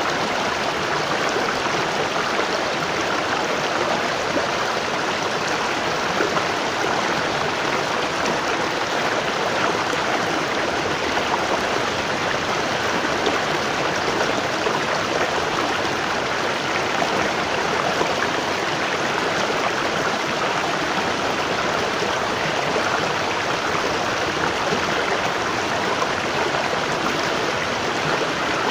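Waterfall, water falling and rushing in a steady, unbroken wash.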